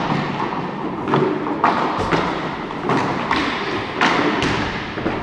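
Hockey sticks, puck and boards giving scattered thumps and clacks, each echoing around a large rink, over the rumble of skating play.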